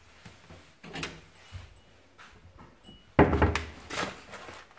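Kitchen handling while a plastic bag of carnaroli rice is fetched: a few light knocks, then a sudden loud knock about three seconds in, followed by the bag rustling as it is brought to the bowl.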